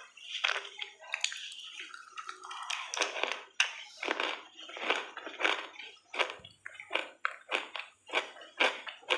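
A person crunching and chewing pieces of baked clay in the mouth, a run of short crunches that comes about twice a second from about three seconds in.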